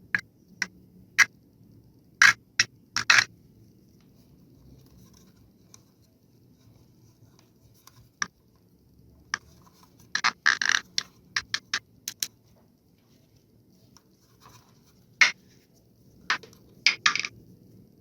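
Handling noise from fitting a wood block into an emptied plastic drill battery cartridge: scattered sharp clicks and knocks, with a short burst of scraping and rattling about ten seconds in and a quick run of knocks near the end.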